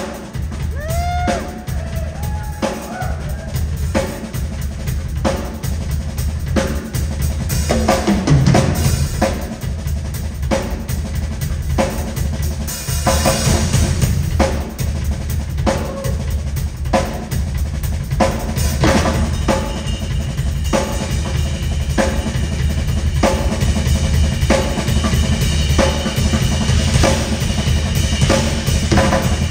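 Rock drum solo on a large live drum kit: kick drum, snare and toms played in a steady stream of hits, with cymbals.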